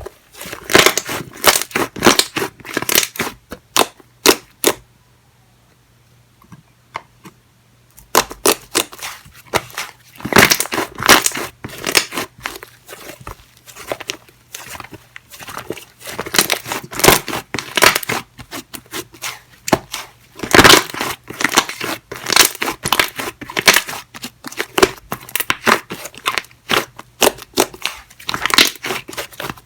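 Hands squishing and stretching slime, with dense runs of wet clicks and pops as trapped air bubbles burst. The sound breaks off for a few seconds about five seconds in, then resumes.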